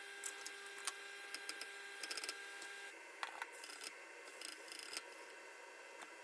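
Small sharp clicks and taps of hand tools working on a graphics card board during a memory-chip swap, over a steady electrical hum that cuts out about three seconds in.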